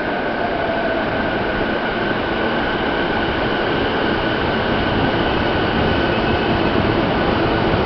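Electric commuter train moving along an underground station platform: steady rolling rumble with a high motor whine held over it, growing slowly louder.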